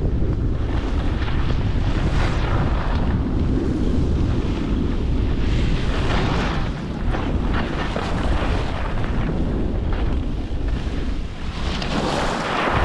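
Wind buffeting the microphone of a camera skiing downhill, a constant low rumble, with the hiss of skis sliding and scraping over packed snow swelling and fading with each turn. A louder scrape near the end as the skis turn hard.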